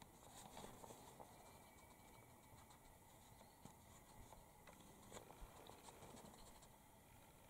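Near silence: faint outdoor ambience with a few scattered soft clicks and light scratchy rustles.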